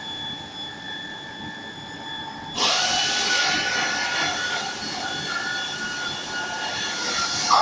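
Press machine running with a steady high-pitched whine. About two and a half seconds in, a sudden loud hiss of air starts; it is sharpest for under a second and then carries on more quietly.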